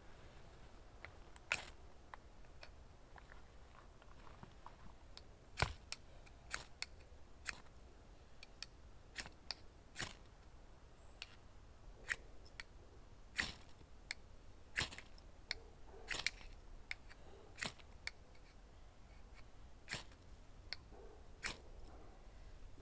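Dry twigs and fatwood kindling snapping and crackling: about twenty sharp, separate snaps at uneven intervals, roughly one a second, a few louder than the rest, over a faint low background.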